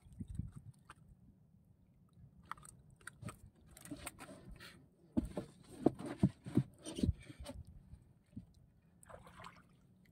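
A fish being unhooked and handled in a small boat: scattered clicks and knocks, then a cluster of louder thumps about halfway through, and a short rustle near the end.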